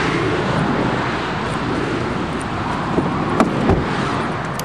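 Autobahn traffic rushing past at high speed: a steady roar of tyres and wind that slowly eases off. A few short knocks and bumps come about three seconds in, as someone climbs into the car.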